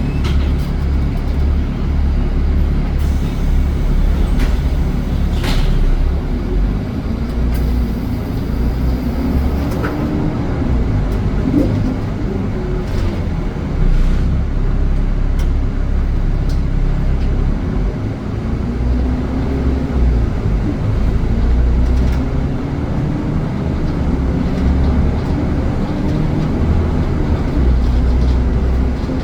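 A bus running, with a heavy steady rumble of engine and road. A fainter engine tone rises and falls several times as the bus speeds up and slows, and a few short clicks and rattles sound along the way.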